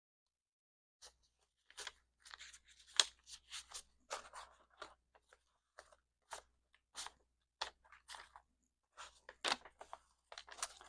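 Paper banknotes being handled and shuffled while counting cash: irregular crisp crinkles, rustles and snaps, starting about a second in.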